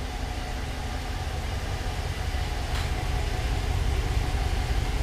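Ram 1500 pickup's engine running with a steady low rumble as the truck rolls slowly into a garage.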